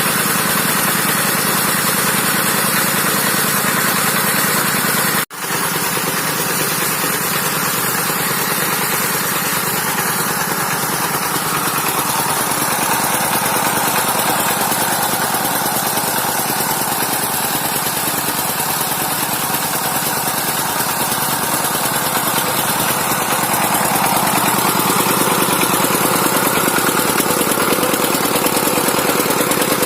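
Dongfeng 12 hp single-cylinder diesel engine running steadily, with a brief cut to silence about five seconds in and a slight rise in level near the end.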